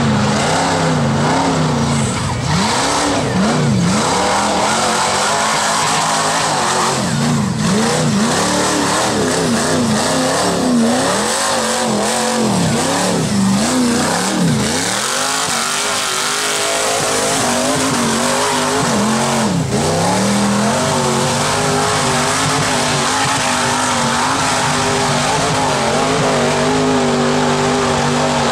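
Rock bouncer buggy's engine revved hard, its pitch rising and falling many times in quick succession as the throttle is worked. About halfway through it settles into a steadier high-revving note, with one more quick rev-and-drop later on.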